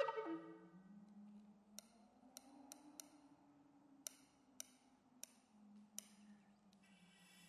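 Wooden recorder's last loud notes die away at the start, then near silence with a faint low held tone and about eight sharp, irregularly spaced clicks: percussive effects played on the recorder. A faint high, thin tone comes in near the end.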